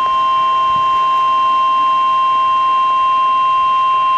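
NOAA Weather Radio 1050 Hz warning alarm tone: a single steady, loud beep held without a break. It is the alert signal that comes before a broadcast warning message.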